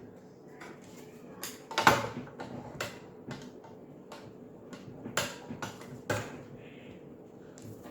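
Scattered light clicks and knocks, about half a dozen spread irregularly, as small adapter pieces are handled and tried for fit on a gas stove's burner knob shaft.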